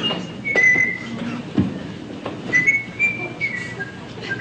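A person whistling a tune in short, clear notes that step up and down in pitch, with a couple of soft thumps from a pillow being plumped.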